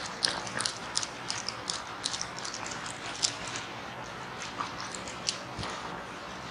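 Writing on a board: short, irregular scratchy strokes and taps, several a second.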